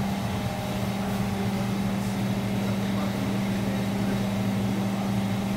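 Honda Biz 125's single-cylinder four-stroke engine idling steadily.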